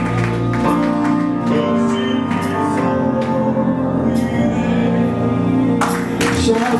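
Background music: sustained instrumental chords with melody notes at a steady level.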